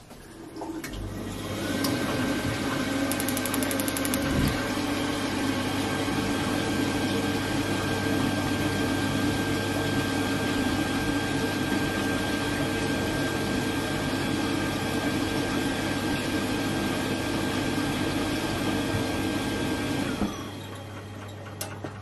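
A hot water tap running while a Glow-worm 24ci combination boiler fires in hot water mode: a steady rush with a thin high whistle over the low hum of the boiler's fan and pump. About 20 seconds in the tap is shut and the rush stops, while the fan and pump hum runs on.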